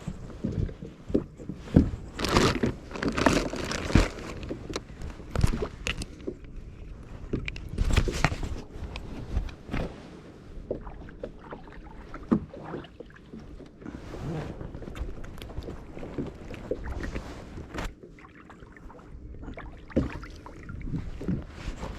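Irregular knocks, clunks and scuffs of gear being handled aboard a small fishing boat, busiest in the first half.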